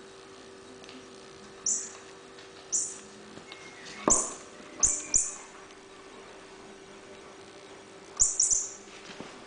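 A kitten's toy being batted about, giving short, bright, high-pitched chirping or jingling bursts, about seven in all in small groups, some with light knocks as it is struck.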